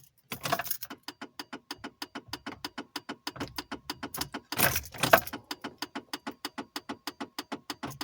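Volvo 240 starter solenoid chattering, a rapid, even clicking of about seven clicks a second while the redblock engine fails to turn over: the sign of a bad earth connection starving the starter of current. A brief louder rush of noise comes about halfway through.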